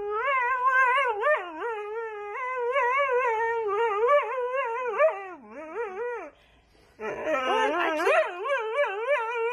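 A dog howling in one long, wavering cry that slides up and down in pitch, breaking off briefly about six seconds in and then starting again.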